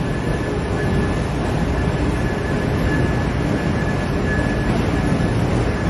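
Passenger train moving along a station track: a steady rumble with a faint, thin high whine that comes and goes.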